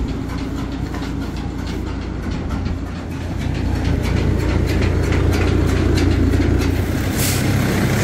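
An engine running steadily with a low hum, with a scatter of short clicks and knocks over it; it gets louder about halfway through.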